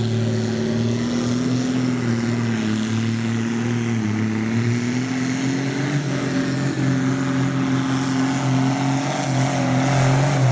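Ford farm tractor's diesel engine running at full load as it pulls a weight-transfer sled. The engine note is steady, sags about four seconds in, then picks back up and holds.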